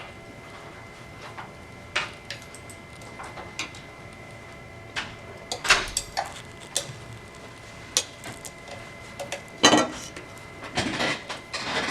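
Scattered metal clinks and taps of an Allen key and screws being worked into a metal handlebar adapter, a few sharper knocks in the second half.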